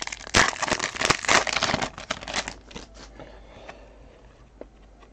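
Foil trading-card pack wrapper crinkling as a stack of cards is pulled out of it, a dense crackle for the first two and a half seconds, then a few faint clicks of cards being handled.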